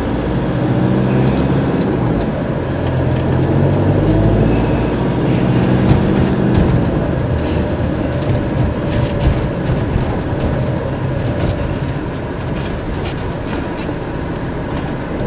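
Fiat Ducato-based motorhome driving slowly through town, heard from inside the cab: a steady diesel engine hum and road noise, the engine note rising and falling a little in the first half, with scattered light rattles and clicks.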